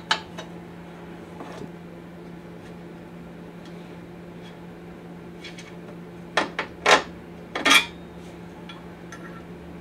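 Metal clinks of an Allen key and bolt hardware against the motorcycle's chrome backrest bracket as a bolt is worked loose. There are a few light taps at the start, then a cluster of sharper clinks about six to eight seconds in, over a steady low hum.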